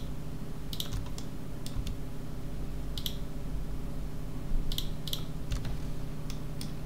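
Computer mouse and keyboard clicks, scattered about one every second or so, as edges are Shift+Alt-clicked one after another over a steady low hum.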